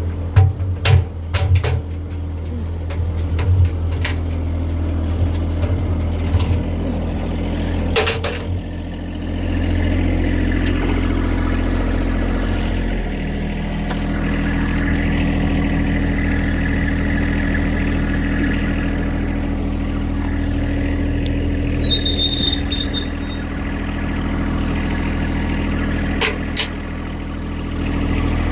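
Washing machine running: a steady motor hum whose tone shifts about 13 seconds in, with a few sharp clicks and a short high beep about 22 seconds in.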